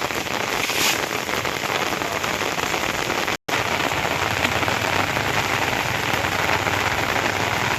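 Steady rain falling, a dense even hiss of drops, cut off for an instant about three and a half seconds in.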